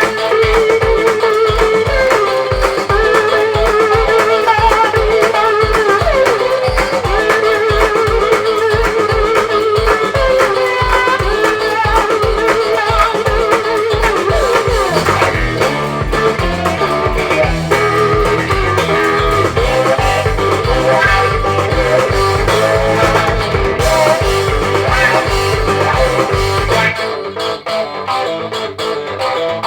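Recorded blues-rock music: electric guitar playing wavering lead lines over a steady drum beat, with a bass line filling in the low end from about halfway through.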